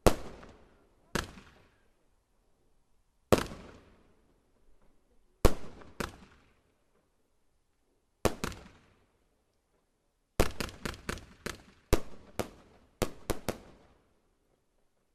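Fireworks going off: single sharp bangs a second or two apart, each with a fading echo, then a rapid string of bangs from about ten seconds in.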